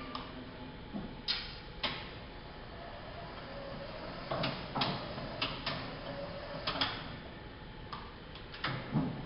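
Komatsu electric order picker being operated: about ten sharp clicks and knocks at irregular intervals over a steady low background, the loudest near the end.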